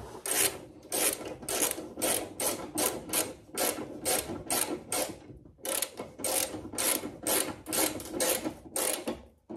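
Hand ratchet wrench driving in a rusty bolt: quick repeated rasping ratchet strokes, about three a second, with a brief pause a little past halfway.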